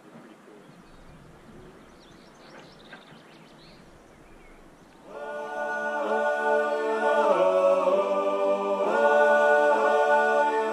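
Faint outdoor background, then about five seconds in, music fades in: unaccompanied choir voices singing held chords that change every second or two.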